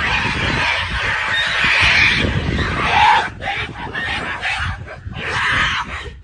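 Mountain gorillas roaring and calling loudly during a fight between two silverbacks. The calls run on without a break for about three seconds, then come in shorter bursts.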